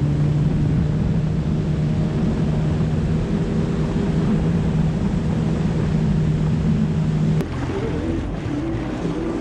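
Yamaha SVHO jet ski's supercharged four-stroke engine running steadily at speed with a constant drone, mixed with rushing water and wind. About seven seconds in, the sound cuts to a quieter, lower, less even engine at slow cruising speed.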